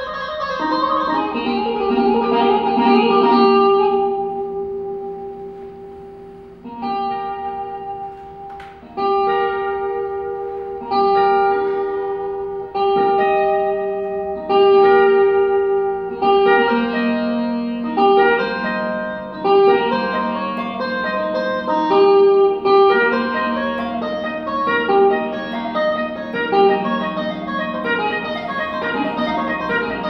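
Electric guitar playing slow single notes that ring out. The sound dies away about four to six seconds in, then notes start again and come more quickly in the second half.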